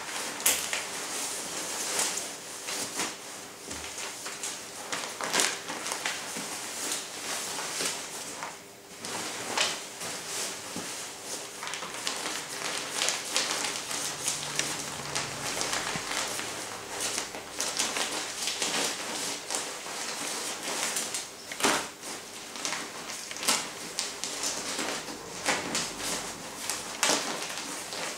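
Crinkling and rustling of a thin nylon Ortlieb compression dry bag as a jacket is stuffed into it and the bag is handled, with irregular crackles and small handling clicks throughout.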